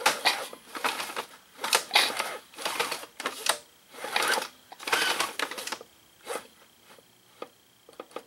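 Tools clattering on a metal workbench, being picked up and set down, in a run of short, irregular bursts. The bursts thin out to a few single clicks after about six seconds.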